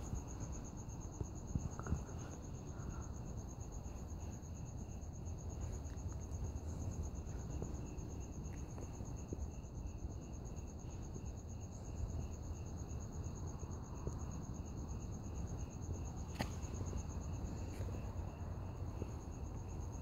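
Crickets chirping in a steady high trill over a low background rumble, with one faint click about sixteen seconds in.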